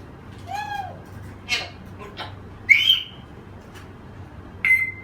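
African grey parrot calling: a short rising-and-falling call, a harsh burst, then two loud, sharp whistles, one about two and a half seconds in and one near the end.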